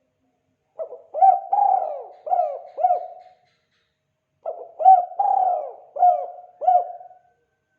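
Spotted dove (tekukur) cooing: two calls, each a run of five short notes, the second call starting about three and a half seconds after the first.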